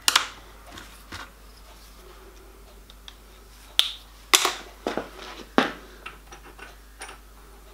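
Small steel workshop parts handled at a bench vise: short, sharp metallic clicks and knocks as pieces of angle and an engineer's square are set down, one right at the start and a quick run of four or five about four to six seconds in.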